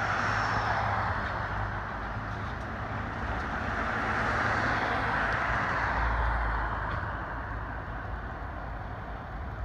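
Passing road traffic: the steady hiss and rumble of vehicles, swelling about the middle and easing off toward the end, with no siren sounding yet.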